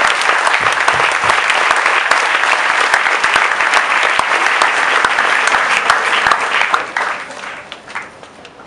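A congregation applauding: dense, loud clapping that thins out and dies away near the end.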